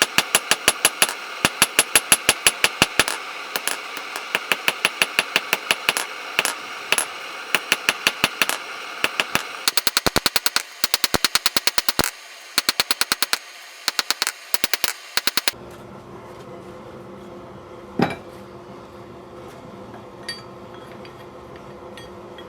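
Hammer striking steel on an anvil: a fast, even run of ringing blows, about three to four a second, over a steady background noise, stopping about fifteen seconds in, followed by one lone strike a little later.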